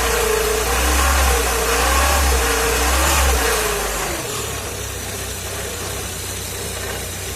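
Volkswagen Golf Mk3 engine running and humming, with a wavering tone over a low drone for about four seconds, then settling to a quieter, steadier run. The owner hears it as an odd hum and a foreign noise, as if something is rubbing somewhere, and suspects the belt rollers.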